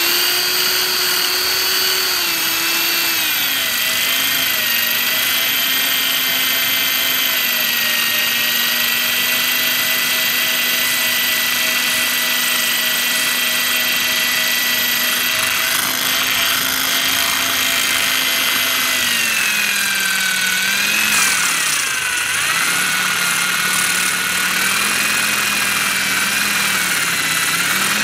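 Electric drill running continuously as its bit grinds into a glass bottle: a steady motor whine whose pitch shifts a few times, then dips and wavers in the last third.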